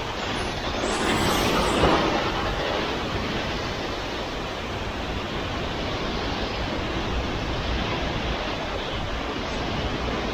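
Hurricane wind blowing hard: a steady rushing noise with a deep rumble, gusting louder in the first two seconds.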